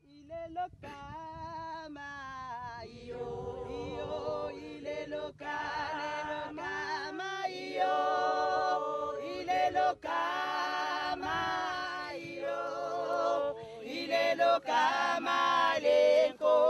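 Unaccompanied choir singing, several voices together in sustained phrases, growing louder in the second half.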